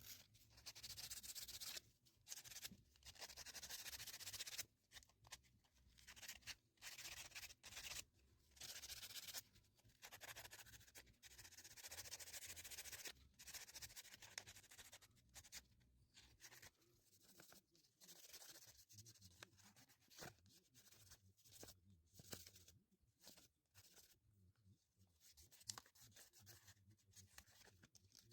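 Faint hand-worked rubbing strokes on wood, in irregular hissing runs of a second or two with short pauses between them.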